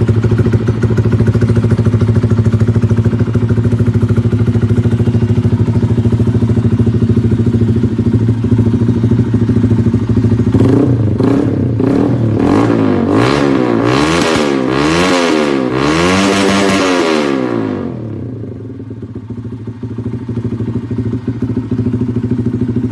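Benelli RFS 150 single-cylinder four-stroke engine, breathing through an aftermarket Rob1 exhaust, idling steadily. About halfway through, the throttle is blipped several times in quick succession, the revs rising and falling with each blip, before the engine settles back to idle.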